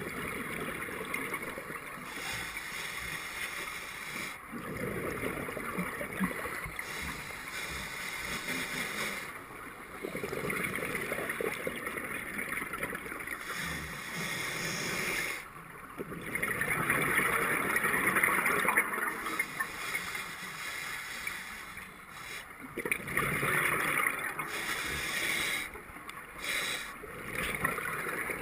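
Scuba diver's regulator breathing underwater: a hiss on each inhalation, then a gurgling rush of exhaled bubbles, repeating in slow cycles.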